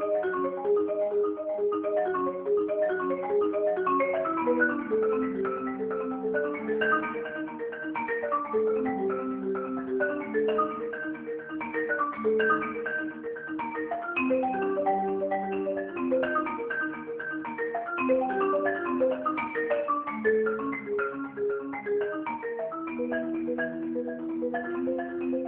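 Solo marimba played with mallets: a steady flow of quick, evenly struck notes in broken chords over a slower-moving lower line.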